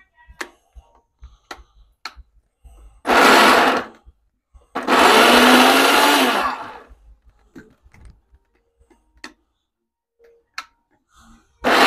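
Countertop blender run in short pulses, grinding a thick batch of beans with onion and chili: three bursts of a second or two, the longest in the middle, the last starting right at the end. Small knocks and clicks of the jar and lid between the bursts.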